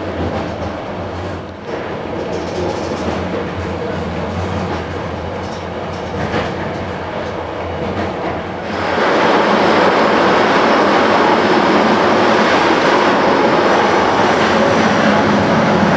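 Passenger train running along the line, heard from inside the carriage: a steady rumble with a low hum. About nine seconds in the noise suddenly gets louder and fuller and stays that way.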